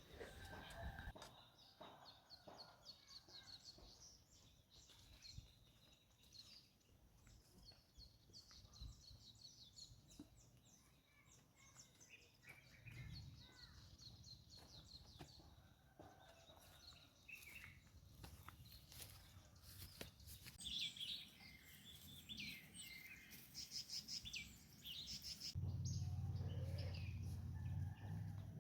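Faint outdoor ambience of small birds chirping and twittering on and off, with scattered light clicks and rustles. A low steady rumble comes in near the end.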